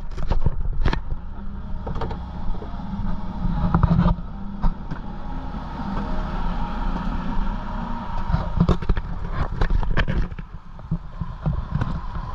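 Fishing boat's engine running with a steady low hum, with repeated sharp knocks and thumps on the deck through it.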